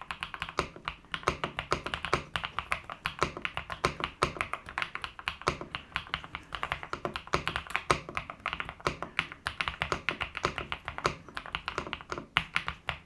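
Fast, continuous typing on a Kisnt 75% mechanical keyboard, close to the microphone: many key clicks a second. The keys are dampened by a silicone/foam layer, giving a solid, not loose sound without a hollow clack.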